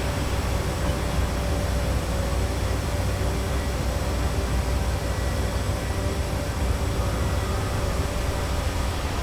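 Busy city street ambience: a steady low traffic rumble with an engine hum running through it.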